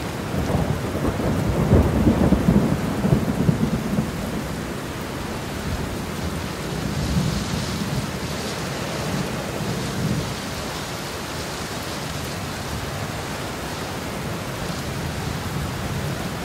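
Thunderstorm: steady rain with low rumbling of thunder, strongest in the first few seconds and then settling to an even wash of rain.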